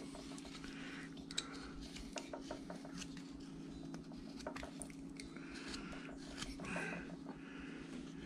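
A carving knife paring wood in short cuts: faint scraping strokes and small clicks, over a steady low hum.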